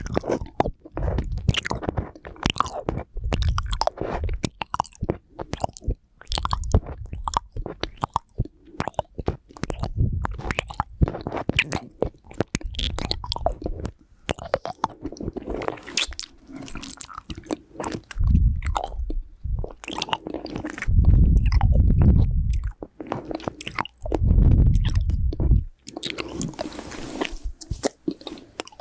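Close-miked mouth sounds of someone eating a hard lollipop: quick wet clicks, taps and crunches of the candy against the teeth. Nose breaths blow on the microphone as low rumbles, twice in the last third.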